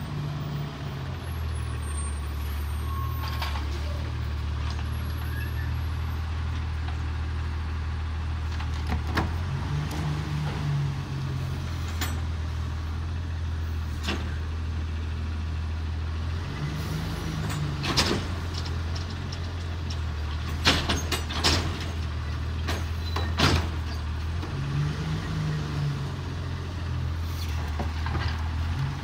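Autocar ACX side-loader garbage truck's engine running steadily, its pitch stepping up for a couple of seconds about three times as the McNeilus Autoreach arm's hydraulics work. Several short sharp noises cut in, mostly in the second half.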